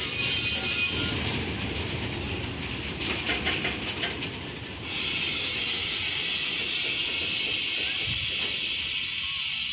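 Freight train of fuel tank wagons rolling slowly past, wheels clicking over the rails, under a steady hiss that drops away about a second in and comes back suddenly about halfway through.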